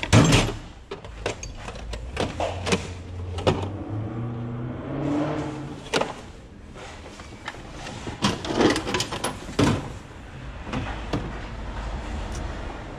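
Steel drawers of a Dayton tool chest being pulled open and slid shut, with loose tools clattering and clanking inside. The loudest clank comes right at the start, and more clatters follow at irregular intervals.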